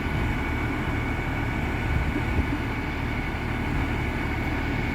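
Vehicle engine idling steadily, with a thin, constant high whine over the low rumble.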